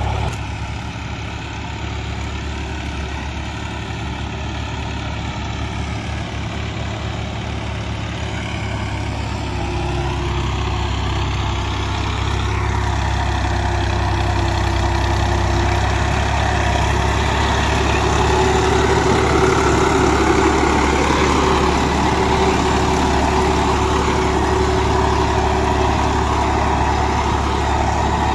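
Al-Ghazi tractor's diesel engine running steadily under load as it pulls a rear leveling blade through tilled soil, growing gradually louder over the second half.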